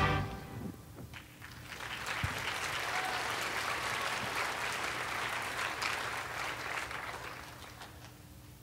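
Audience applauding: the clapping swells about a second in, holds steady, then dies away near the end.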